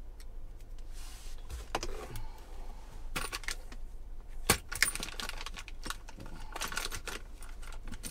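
A hand rummaging through a car's center console bin: small hard items clicking and clinking against each other and the bin, mixed with plastic rustling. The scattered clicks start about a second in.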